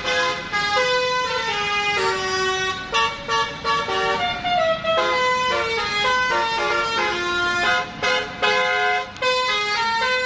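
Bus 'telolet' horn, a multi-tone musical air horn, playing a quick tune of stepped notes with a few short breaks.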